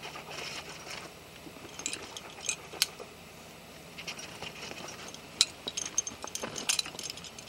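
Quickdraws and carabiners on a climbing harness clinking and jangling as the climber moves, in scattered bursts of sharp metallic clicks.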